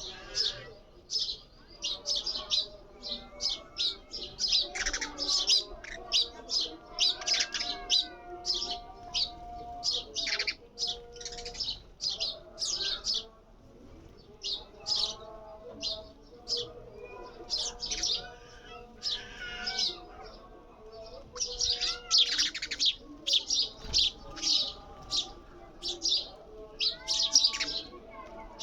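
Small birds chirping in a rapid, continuous stream of short, high chirps, busiest near the end.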